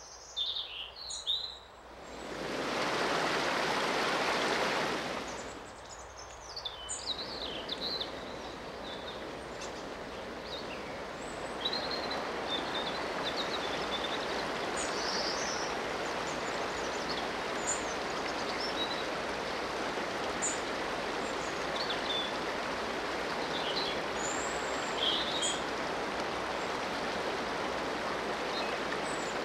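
Birds chirping and calling over a steady rush of running water. A louder rushing swell comes up for a few seconds near the start and then fades back.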